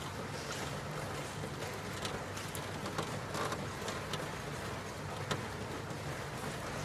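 Steady rain falling, an even hiss broken by scattered sharp drips and ticks.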